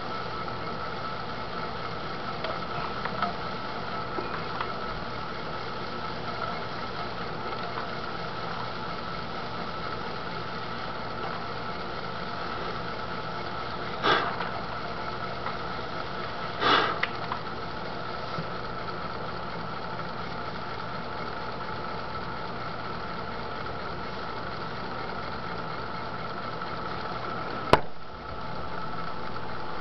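Electric potter's wheel motor running steadily with a constant whine while the wheel spins. There are two brief louder rushing noises near the middle and a sharp click near the end.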